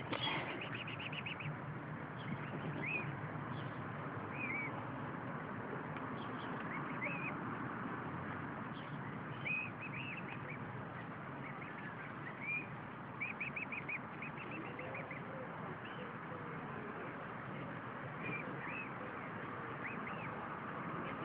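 Mute swan cygnets peeping: short, high, rising calls every second or two, now and then run together into quick trills of about ten peeps a second, over a steady background hiss.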